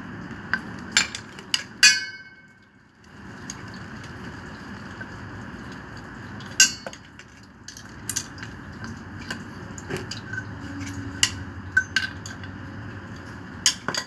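Scattered small metallic clicks and taps of a screwdriver and hardware at the terminal box of a peripheral water pump's electric motor, one ringing briefly about two seconds in, over steady background noise.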